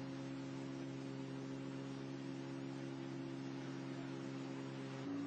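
A steady low hum of a few even tones over a faint hiss. Its pitch steps slightly up near the end.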